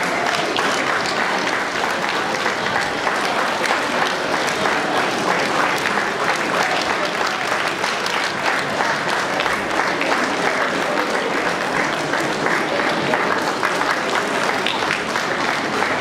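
Audience applauding: many hands clapping in a steady, dense patter that keeps up without a break, with a few voices in the crowd.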